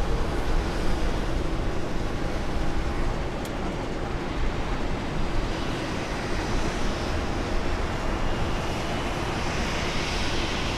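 Steady rushing noise of jet aircraft, with a faint high whine about halfway through; it cuts off suddenly at the end.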